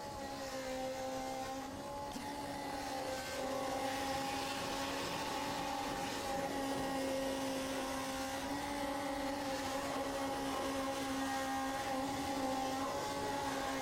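Power sanders running steadily on car-body welds: a held whine with a hiss of abrasive on steel, its pitch shifting slightly a few times as the tools are loaded and eased off.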